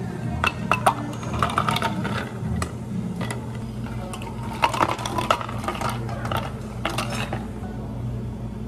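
Ice cubes poured from a scoop into tall glasses, clattering and clinking in quick clusters of clicks that stop about a second before the end.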